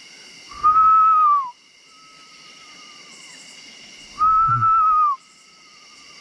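A man whistling a bird call: two loud, steady single notes of about a second each, each dropping in pitch at the end. Between them, a fainter wavering whistle of similar pitch answers, the calling bird he is imitating, which he takes for a mourning dove or an owl. Steady insect trilling runs underneath.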